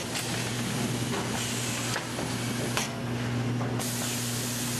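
Currency packaging machinery running: a steady mechanical hum with hiss and a few faint clicks as shrink-wrapped bricks of notes move along the conveyor.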